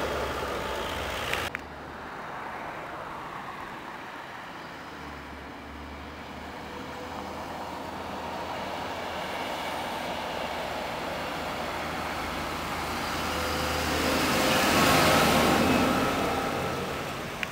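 Fendt tractor's diesel engine and tyres as it hauls a loaded dump trailer past, the rumble falling away after a sharp click about a second and a half in. A tractor with trailer then approaches and passes close, loudest about fifteen seconds in, and the sound cuts off suddenly.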